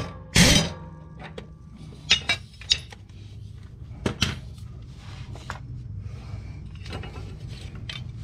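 Impact wrench firing a short burst about half a second in as it spins the mower blade's bolt off the spindle. Scattered light metallic clinks and knocks follow as the bolt, spacers and steel cutting blade are handled.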